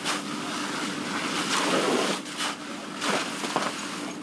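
Fire hose nozzle spraying a water stream onto a burning building: a rushing hiss that swells and eases, over a steady hum.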